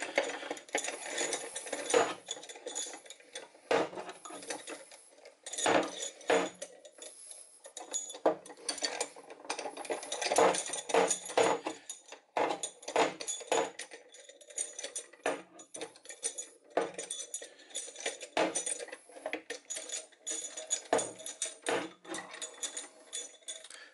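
Hand socket ratchet clicking in irregular short runs, with metal-on-metal clinks and clanks of the socket and handle against the steel bench vise as its screw and nut are tightened up during reassembly.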